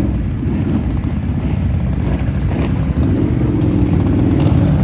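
Quad ATV engines running at low speed as the machines creep along in a line, a steady engine drone with small changes in revs.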